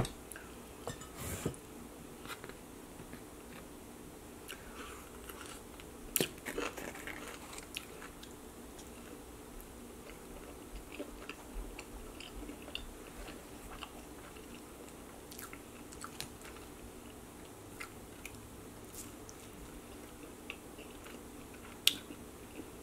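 A person chewing and biting into pizza close to the microphone: soft mouth sounds with many small scattered clicks, and a few sharper ones, the loudest near the end.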